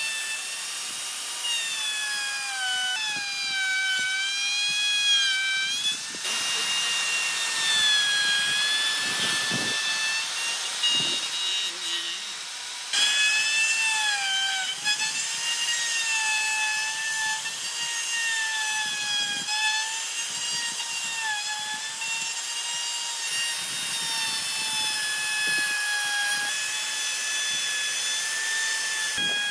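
Dongcheng electric plunge router running at speed and cutting wood, its high motor whine sagging and rising in pitch as the bit takes the cut, over the rasp of wood being cut away. The sound jumps abruptly a few times between passes.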